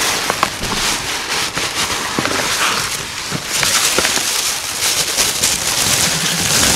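Tissue paper and brown paper gift bags rustling and crinkling as the tissue is pulled out of two bags at once, a dense run of crackles.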